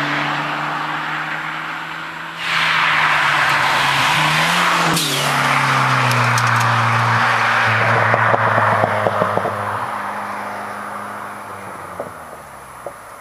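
Car with a turbocharged Mitsubishi 4G54B four-cylinder driving hard past, its engine note dropping in pitch as it goes by about five seconds in, then fading into the distance.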